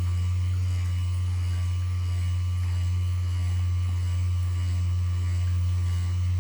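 Electric vibration massager pressed against the patient's body, running with a steady low hum.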